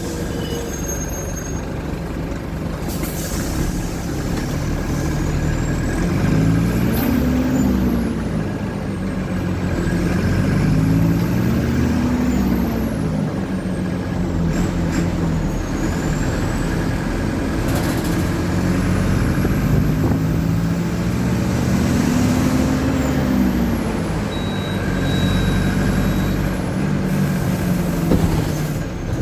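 Mercedes-Benz OF-1722M bus's diesel engine running under way, its pitch climbing and dropping back several times as it revs up and eases off through the gears. A few short hisses break in, typical of the air brakes.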